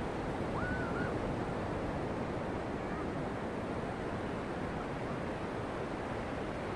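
Surf breaking on a beach, a steady even rush of waves. A faint short whistle rises and levels off about a second in.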